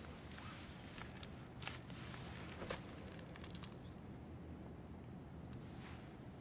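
Quiet outdoor ambience with a steady low hum, a few soft clicks and rustles in the first three seconds, and two faint high bird chirps about five seconds in.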